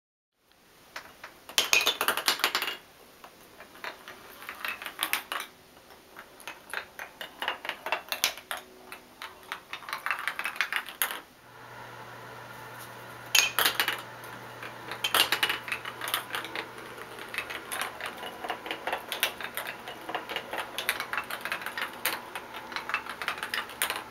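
Balls rolling and clattering down a switchback track built of wooden KEVA planks: a rapid run of clicks and knocks on wood, with several louder clattering bursts.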